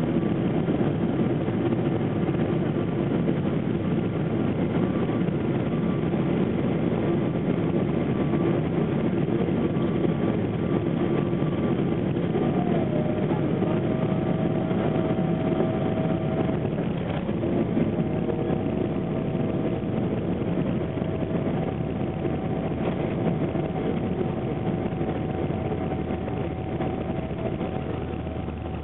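Cabin noise of a Boeing 777 on its landing approach: a steady rush of airflow and engine noise. A steady whining tone comes in about halfway through, and the overall sound eases slightly near the end.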